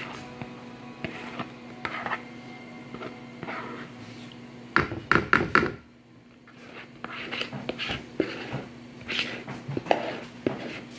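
Mixing bowl being scraped and knocked while cornbread batter is emptied from it into a cast-iron skillet: scattered scrapes and light knocks, with a quick run of sharp knocks about five seconds in, over a steady low hum.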